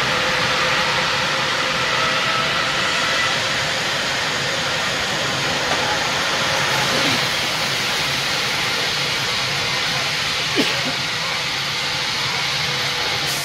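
Drop tower ride with its rider ring at the top: a steady hissing noise, with a faint whine under it that stops about three seconds in.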